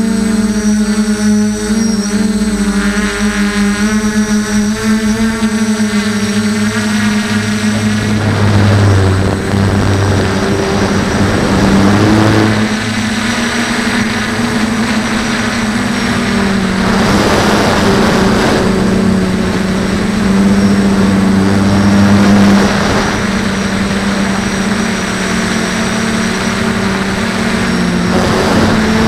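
Brushless motors and propellers of a DJI F450 quadcopter humming steadily, picked up by its onboard camera. From about eight seconds in, wind rushes over the microphone in swelling and fading gusts over the motor hum.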